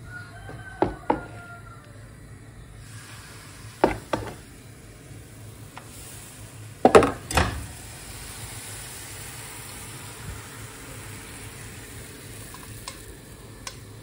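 Crepes sizzling in a hot frying pan, the sugar-sprinkled batter cooking, with three pairs of sharp clatters; the loudest pair comes about seven seconds in.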